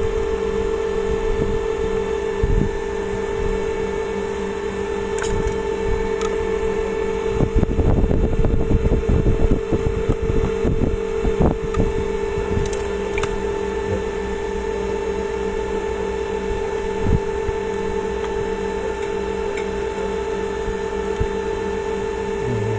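A steady motor-like hum runs throughout, with scattered clicks and a burst of clattering, knocking handling noise about eight to eleven seconds in.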